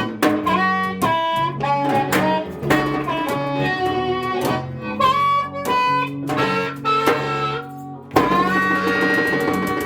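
Live blues played on guitar and harmonica: a run of quick plucked notes over a steady bass line, then a long held chord from about eight seconds in.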